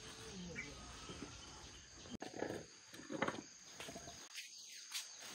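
Steady chirping of an insect chorus, with a few short bursts of rustling about halfway through as a large plastic bag of popcorn is handled.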